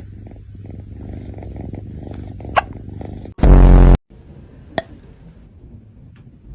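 Domestic cat purring steadily, broken by sharp little hiccups about two and a half seconds in and again near five seconds; hiccups like these come from eating too fast. Just after the first hiccup, a very loud low-pitched blast lasting about half a second cuts in, and the purr then goes on more faintly.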